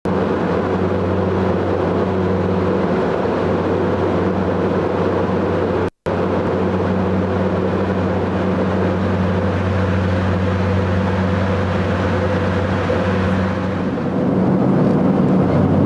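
Steady drone of an airliner's engines and airflow heard inside the cabin, with a constant low hum. It drops out briefly about six seconds in.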